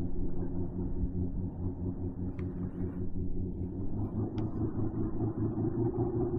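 An engine running with a steady low hum, with two faint clicks in the middle.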